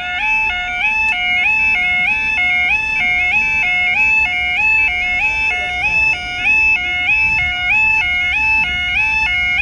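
Level crossing warning alarm sounding a steady two-tone warble, stepping between a low and a high note about twice a second, over a low rumble.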